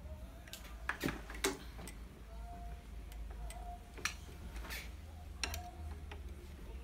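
Irregular light metallic clicks and ticks as the looper mechanism of an industrial sewing machine is turned and adjusted by hand with a screwdriver, over a steady low hum.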